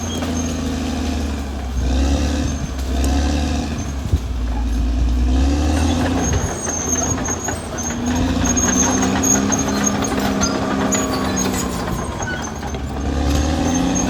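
Caterpillar D6R XL bulldozer's diesel engine running under changing load, its pitch dipping and rising, with a heavy low rumble, short high squeaks and one sharp knock about four seconds in.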